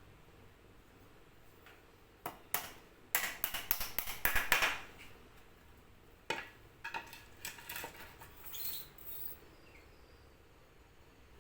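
Light knocks and clicks of bird-cage parts being handled and fitted together by hand, clustered from about two to five seconds in, then scattered softer taps.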